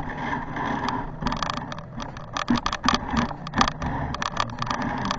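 Handling noise as a camera is picked up and repositioned: an irregular run of clicks, knocks and rubbing over a steady background hum.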